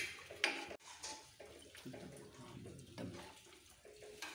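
Steel ladle stirring thin besan batter in a metal pot: a wet sloshing, with one sharp knock about half a second in.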